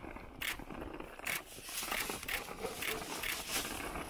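Footsteps crunching in snow, a short crunch about every half second, loudest in the first second and fainter after.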